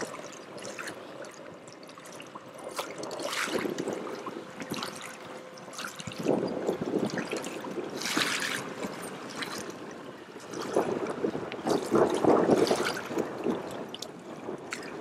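Small waves lapping and splashing against a kayak hull, coming in irregular swells of splashy water noise.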